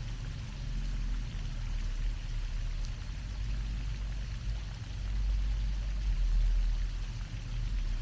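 Pond fountain's jet of water splashing down onto the pond, a steady watery hiss, over a low rumble that grows louder about five seconds in.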